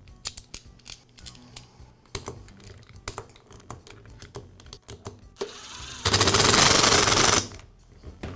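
Small sharp clicks and ticks of a hand screwdriver and plastic housing as the recoil starter is screwed onto a trimmer engine block, then, about six seconds in, a loud rasping whir lasting about a second and a half.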